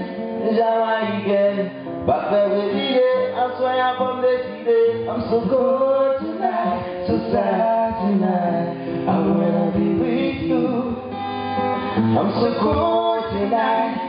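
Acoustic-electric guitar strummed with a man singing a slow melody over it.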